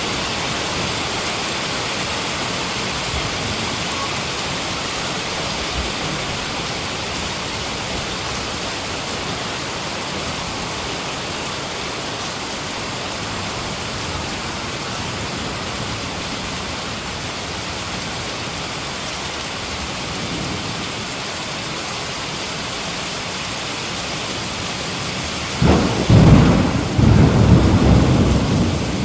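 Heavy rain falling steadily, with a loud, low roll of thunder that breaks in near the end and rumbles on unevenly.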